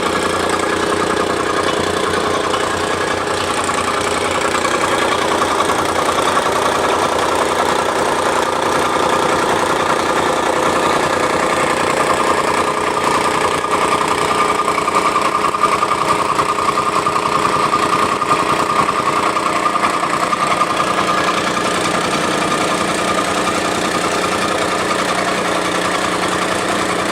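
Tamping rammer (jumping jack compactor) running steadily while compacting backfill soil, its engine sound mixed with a rapid, even pounding.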